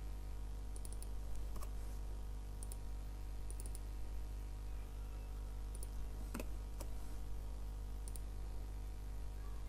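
Faint computer mouse clicks, several in quick pairs like double-clicks, over a steady low electrical hum.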